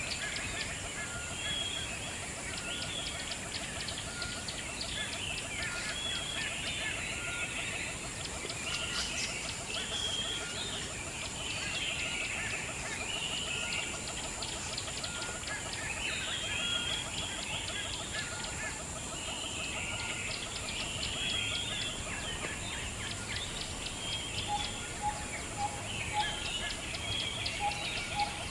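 Many birds chirping and calling together without a break. Near the end, a short clear note is repeated several times.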